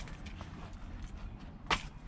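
Two wooden knocks while splitting firewood: a short light one at the start and a sharper, louder one near the end, with faint small ticks between.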